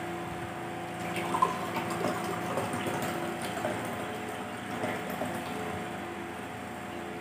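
Water poured from a plastic jug into a drinking glass, filling it. A steady low hum runs underneath.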